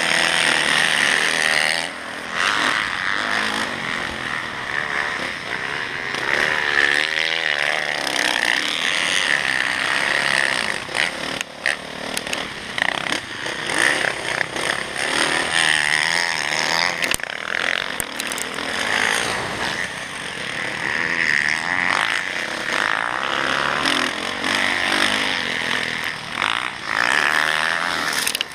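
Motocross dirt bike engine heard on board, revving up and falling off again and again as the rider accelerates and backs off around the track.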